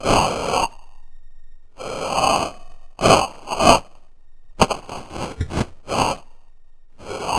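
Made-up creature calls for a fictional walking dolphin: a string of short, noisy, breath-like calls, each under a second, with a quick run of clicks about halfway through.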